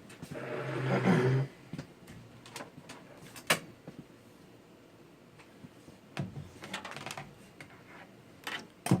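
Scattered clicks and light clatter of a computer keyboard being handled, its keys knocking. It opens with a louder, steady low-pitched hum lasting about a second.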